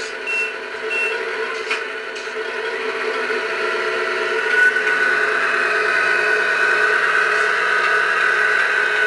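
Radio-controlled Globe Liner model truck running, its drive giving a steady mechanical whine. A higher whine rises and holds about halfway through as the truck speeds up. A few short high beeps and a click come in the first two seconds.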